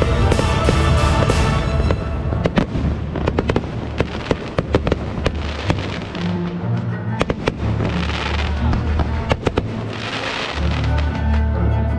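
Fireworks display going off over music played for the show: many sharp cracks and pops through the middle, with hissing bursts near the end.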